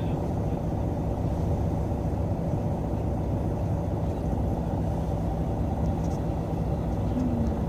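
Steady low rumble of a city bus's engine and running gear, heard from inside the passenger cabin.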